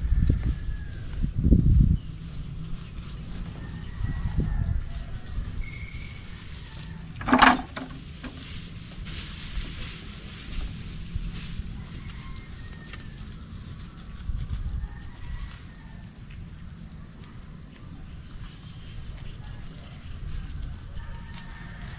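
Steady high insect buzz, with a few low thumps in the first two seconds and one short, loud goat bleat about seven seconds in.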